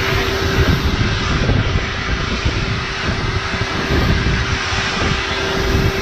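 Shop vacuum running steadily with a constant drone, its nozzle being drawn over a dog's coat.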